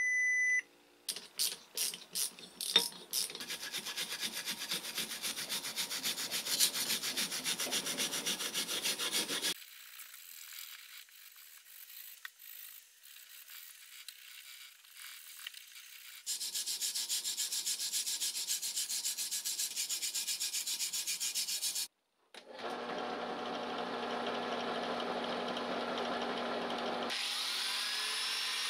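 A multimeter's beep cuts off, then a hand brass wire brush scrubs the aluminium motor housing of an old electric blower in quick, even scraping strokes, in several stretches broken by cuts. Over the last few seconds a machine motor runs steadily.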